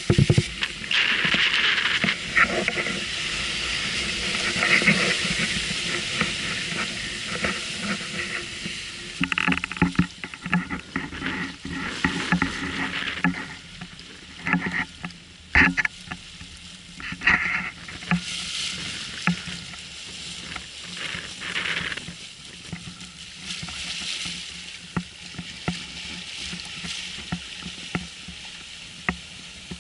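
Water rushing and splashing along a sailing yacht's hull as it heels through choppy water, a steady hiss that is loudest in the first third. In the middle comes a run of sharp, irregular slaps and knocks, and after that the hiss goes on more quietly.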